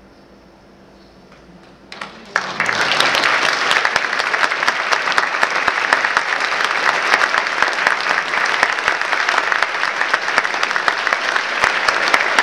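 A brief hush, then a theatre audience bursts into applause about two seconds in and keeps clapping steadily: applause at the end of a stage performance.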